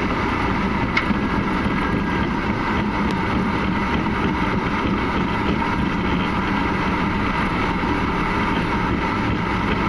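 Steady flight-deck noise of an Airbus A300-600 rolling out after landing: engine and airflow noise with a faint steady whine as the airliner decelerates on the runway.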